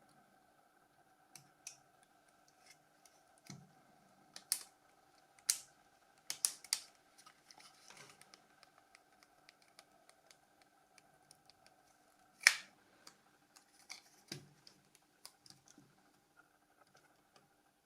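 Scattered sharp clicks and taps of small plastic phone parts being handled and fitted together, the loudest one about twelve and a half seconds in, over a faint steady hum.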